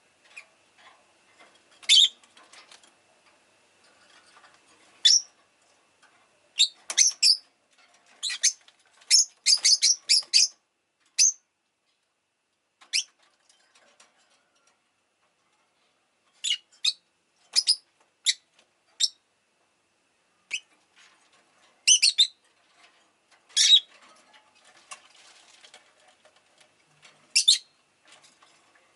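Rosy-faced lovebird giving short, sharp, high-pitched chirps in irregular clusters, with pauses of a second or more between groups.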